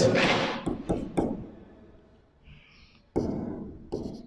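Stylus tapping and scraping on the glass of an interactive whiteboard as words are written, in a few short knocks and scratchy strokes.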